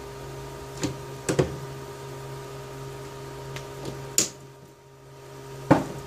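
A handful of short clicks and knocks from the parts of an Amphenol RJ21 wire insertion tool being handled and opened, the loudest near the end, over a steady electrical hum.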